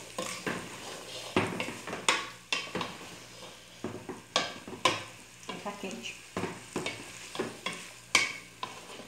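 Wooden spoon stirring cooked beans in a large metal pot, scraping and knocking against the pot in irregular strokes, with the seasoning sizzling faintly underneath.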